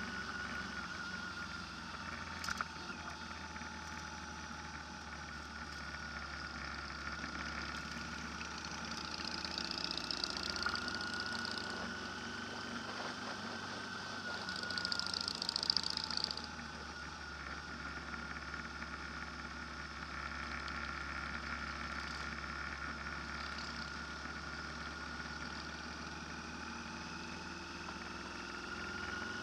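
An engine running steadily, its pitch drifting slowly up and down, with two short bursts of hiss about ten and fifteen seconds in.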